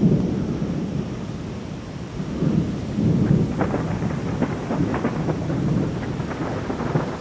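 Thunder rumbling low in rolling swells from an approaching thunderstorm, with a few short crackles in the middle.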